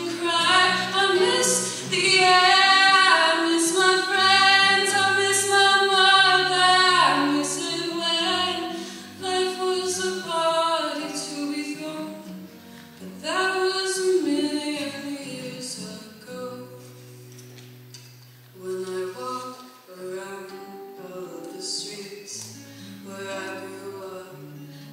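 Female solo voice singing a slow song into a microphone, accompanied by an acoustic guitar. The singing is loudest with long held notes in the first several seconds and softer in the second half.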